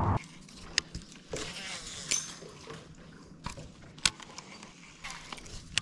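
A steady motor hum cuts off just after the start, leaving a quiet background broken by about half a dozen light, sharp clicks and small metallic rattles spread through the rest.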